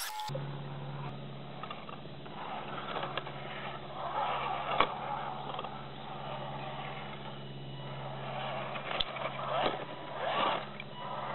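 Radio-controlled scale crawlers' electric motors and geared drivetrains running with a steady low hum, tyres scrabbling over rough granite, with a couple of sharp clicks.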